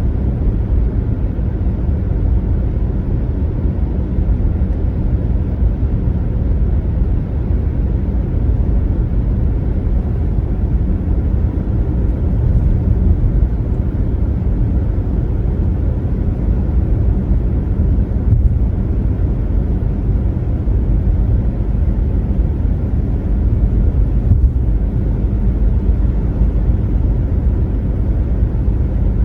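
Steady low rumble of a car cruising on the highway: tyre and road noise with engine drone, unchanging throughout.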